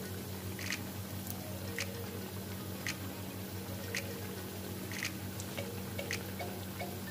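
Potato patties frying in hot oil, a steady sizzle with sharp crackles and pops about once a second over a low steady hum.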